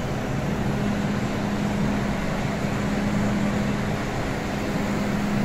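Steady mechanical hum of an underground metro station platform, with a constant low tone running under an even rushing noise.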